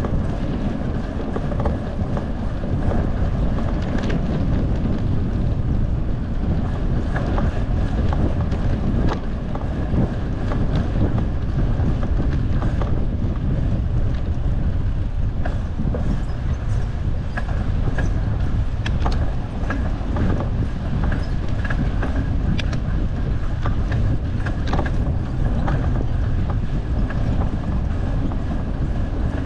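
Wind rushing over the microphone of a bicycle-mounted camera while riding, with scattered small clicks and rattles from the bike throughout.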